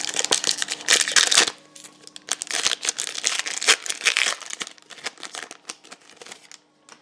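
A trading-card pack's wrapper crinkling and tearing as the pack is opened by hand, in two main spells of crackling and then a few smaller rustles that die away near the end.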